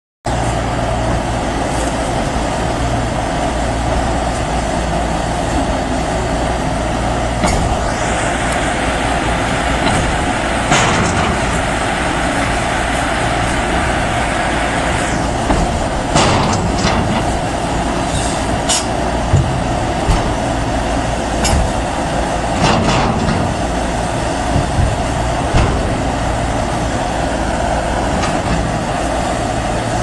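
Yonggong YGX260 crawler excavator's diesel engine running steadily under working load, with scattered sharp clanks and knocks from the working arm that come more often in the second half.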